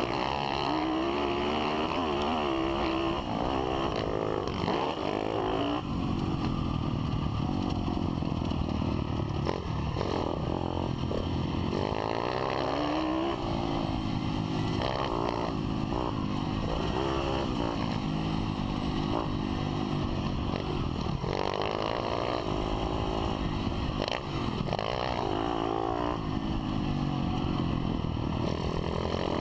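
Pit bike's single-cylinder four-stroke engine revving up and falling back again and again as the rider accelerates, shifts and rolls off along a dirt track.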